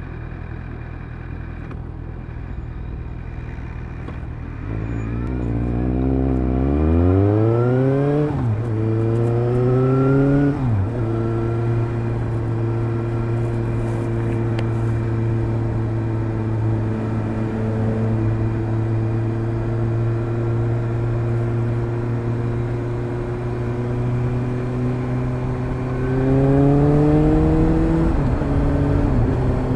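Suzuki GSR750 inline-four motorcycle engine through a Fuel aftermarket exhaust with the dB-killer fitted. It runs low and steady at first, then pulls away with the revs climbing and dropping sharply at two upshifts. It then holds a steady cruise, and near the end the revs rise once more and fall away.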